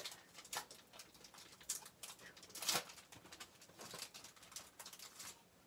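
Foil wrapper of a baseball card pack crinkling and rustling as it is torn open by hand: a series of short crackles, the loudest about two and a half seconds in.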